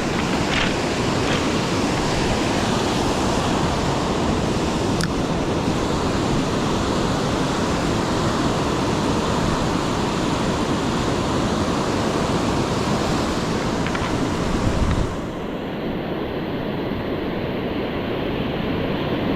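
Ocean surf washing onto a beach in a steady roar, mixed with wind on the microphone. About three-quarters of the way through the roar drops somewhat and loses its hiss.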